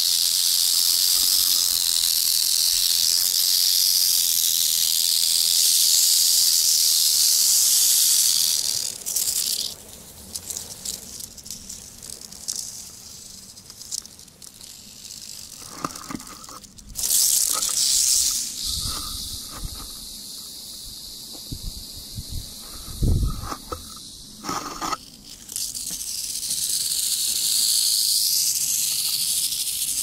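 Rattlesnakes in a den buzzing their rattles as a defensive warning: a steady, high, hiss-like whirr. It drops away about nine seconds in, leaving rustling and a few dull thumps, comes back briefly, and swells again near the end.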